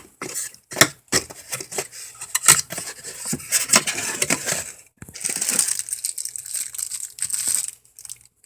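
Plastic packaging crinkling and rustling as accessories are unwrapped and handled, with many sharp clicks and taps for the first few seconds, then a steadier rustle that stops near the end.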